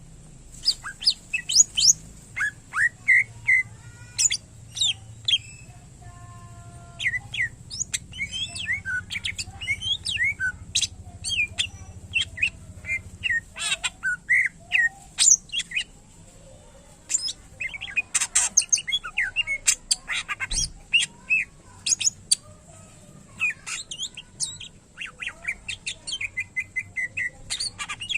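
Cucak ijo (green leafbird) singing a fast, varied song of sharp chirps, whistles and quick sweeping notes, with imitations of other birds' songs mixed in.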